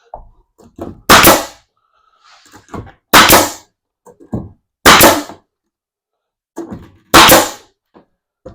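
Nail gun firing nails into plywood: four sharp shots about two seconds apart, with lighter knocks between them.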